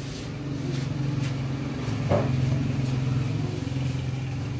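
A motor vehicle's engine running nearby with a steady low hum that grows louder toward the middle and then eases off a little, like a vehicle passing slowly. A single short knock comes about two seconds in.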